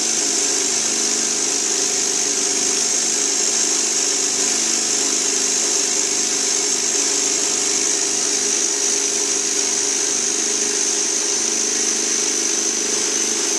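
Small student-built single-cylinder compressed-air engine running steadily at about 1,385 rpm, fed from a shop-air hose. A strong, even hiss of air sits over a steady mechanical hum, with no change in speed.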